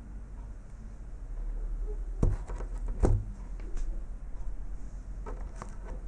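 A shrink-wrapped phone box being handled: two knocks about two and three seconds in, then a few lighter clicks and taps, over a steady low hum.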